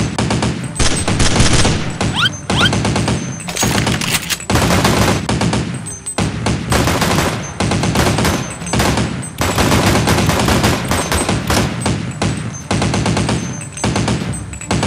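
Gunfire sound effects: long bursts of rapid automatic fire, dubbed over toy blasters, with only short breaks between bursts.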